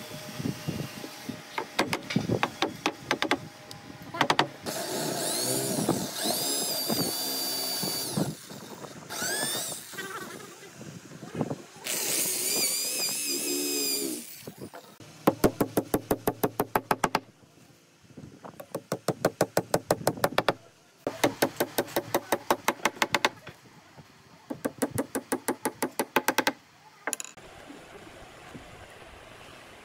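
Cordless drill boring into pine in several bursts, its pitch rising and falling with the trigger, alternating with runs of fast, even clicking at about ten a second. A few light knocks come before the drilling starts.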